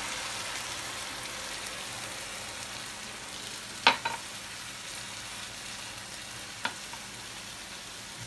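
Chopped greens sizzling in a frying pan just after a splash of water went in, the sizzle slowly dying down. Two sharp knocks of the spatula against the pan come about four seconds in and again near seven seconds.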